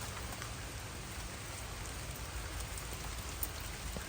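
Heavy rain falling steadily, an even hiss dotted with small drop ticks.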